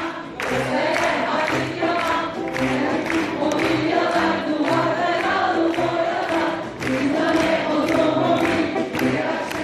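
A group of voices singing a Turkish song together in unison, with live instrumental backing and a steady beat.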